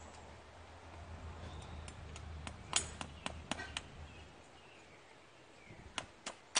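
A series of short, sharp clicks and knocks, a cluster of about six in the middle and more near the end, as a horse's hoof is picked up and worked on by hand.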